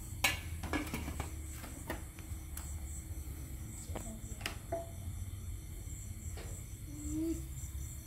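Crickets chirping in an even, pulsing rhythm over a steady low hum, with scattered light clicks and knocks and a few brief fragments of voices.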